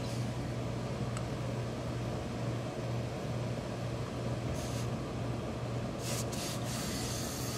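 A tailor's iron pressing the folded hem of a suit jacket: short hisses a little after four and a half seconds and again around six seconds in, over a steady low hum.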